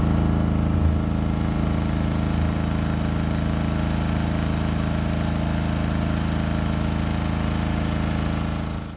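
Portable generator running steadily, a constant engine hum, charging the batteries of a sailboat's electric drive motor to extend its range. It fades out at the very end.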